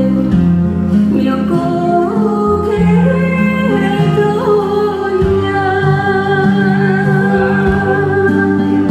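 A woman sings a Korean trot song into a microphone over instrumental accompaniment, holding long notes with vibrato.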